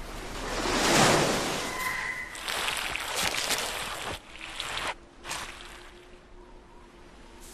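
Cartoon sound effects: a swelling whoosh that peaks about a second in and falls away, followed by a run of short knocks and rustles that die down.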